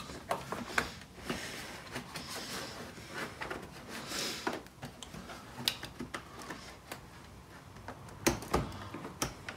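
Plastic clicks, knocks and rubbing as fingers press and pry at the clip tabs of a BMW M2's kidney grille and front trim panel to release it. The clicks are scattered and irregular, with a sharper cluster near the end.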